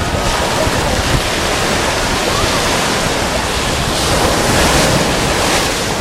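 Small sea waves breaking and washing up over sand at the water's edge, a steady rushing surf that swells louder about four seconds in as a wave runs up the beach.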